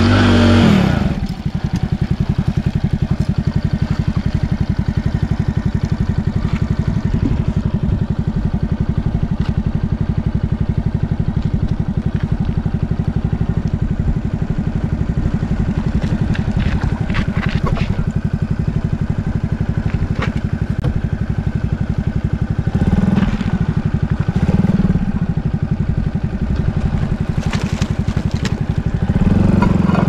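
Motorcycle engine running steadily at low speed as the bike is ridden over rough, cracked ground. It revs briefly a few times near the end, with occasional clatter.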